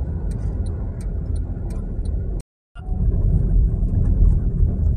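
Steady low rumble of engine and tyre noise heard from inside a moving car's cabin. The sound drops out completely for a moment about halfway through, then comes back a little louder.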